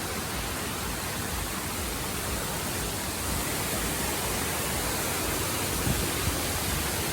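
Steady rushing of a waterfall, an even hiss of falling water with no change.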